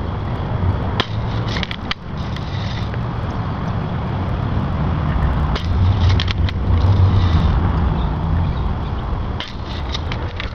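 Low, gusting rumble of wind on the microphone, swelling in the middle, with a few clusters of sharp clicks.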